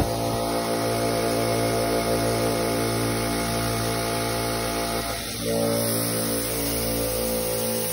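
Central Pneumatic 2.5 HP, 10-gallon air compressor running, its motor and pump refilling the tank after kicking in. It is a steady drone with a slow pulsing, and its pattern shifts slightly about five seconds in.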